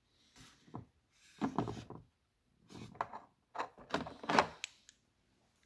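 A metal PEX expansion head being lifted out of its slot in a hard plastic tool case, with several clunks and scrapes of metal on plastic; the loudest comes about four seconds in.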